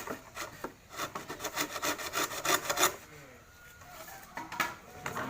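Hand saw cutting through bamboo in quick back-and-forth strokes. It pauses about three seconds in, then gives another stroke near the end.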